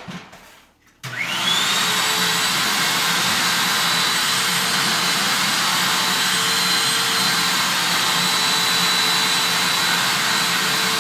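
Vacuum cleaner switched on about a second in, its motor whining up to speed and then running steadily.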